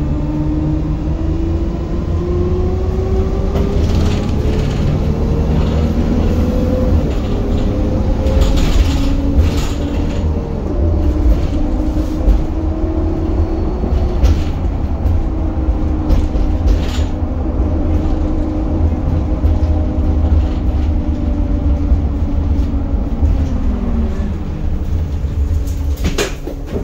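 Optare Solo bus's rear-mounted diesel engine heard from inside the cabin, pulling hard as the bus accelerates, its pitch rising over the first several seconds. There is a brief dip like a gear change about ten seconds in, then steady running, and the engine drops away near the end as the bus slows. Interior rattles and knocks sound throughout, with a sharper clunk just before the end.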